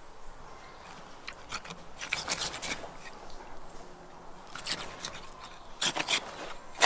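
Large knife cutting through the raw skin and sinew at an ostrich's leg joint, in several short strokes, the sharpest near the end.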